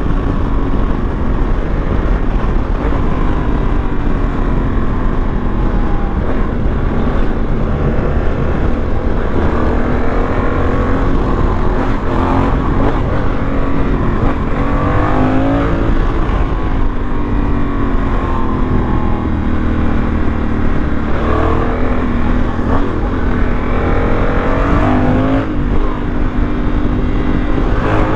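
Honda Africa Twin's parallel-twin engine under way, its pitch climbing and dropping repeatedly as the bike accelerates and shifts gears, over a steady low rush of wind on the microphone.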